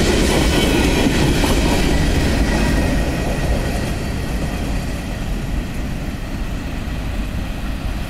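Freight train boxcars rolling past on steel wheels, a steady rumble with clatter over the rail joints that fades about halfway through as the train moves away.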